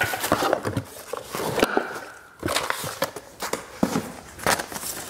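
Handling noises as a gift package is gone through and a note taken out: packaging and paper rustling with several knocks and taps.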